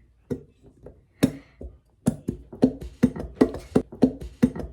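A few scattered knocks, then background music with a quick, steady beat of short pitched strikes, about five a second, starting about two seconds in.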